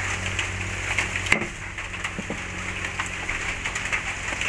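Scattered small clicks and crackles, with one sharp crack about a second and a half in and a lighter knock a second later.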